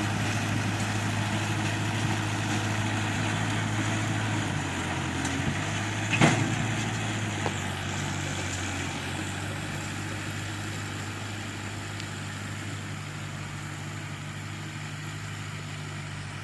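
A motor running steadily with a low hum that shifts pitch twice, and a single knock about six seconds in.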